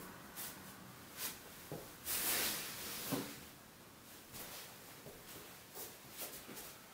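Soft footfalls of feet in socks on foam floor mats, with clothing swishing as the body lunges and twists. There are a few scattered soft taps and one longer swish about two seconds in.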